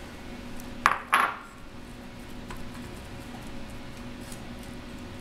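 Two quick metallic clinks of a utensil against a cooking pan about a second in, a quarter second apart, followed by faint light handling.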